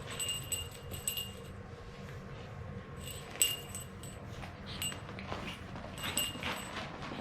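Light metallic jingling of a small bell or metal tag, in four short clusters of ringing clinks over a low steady rumble.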